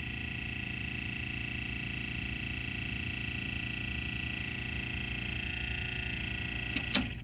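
Capstan motor of a Sony TC-K65 cassette deck running with a loud, steady whine after being freed from a jam; the owner judges the motor unhealthy and in need of replacement. It cuts off with a couple of clicks near the end.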